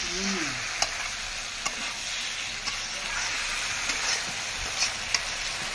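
Potato and vegetable curry sizzling in hot oil in a metal kadhai while a spatula stirs it, with a few light clicks of the spatula against the pan.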